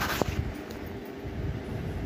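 A plastic spice jar's lid clicking open, two quick clicks at the start, over a steady low rumble.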